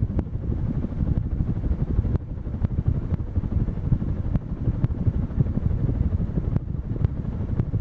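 Sierra 52-inch ceiling fan running, its draft buffeting the microphone as a steady, fluttering low rumble.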